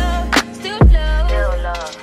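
Background song with a sung vocal line over deep, sustained bass notes and sharp drum hits.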